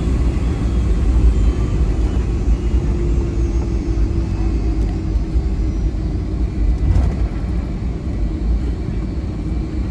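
Steady low rumble inside the cabin of a Boeing 757-300 taxiing on its engines, with a faint steady hum that comes in about three seconds in and one light knock about seven seconds in.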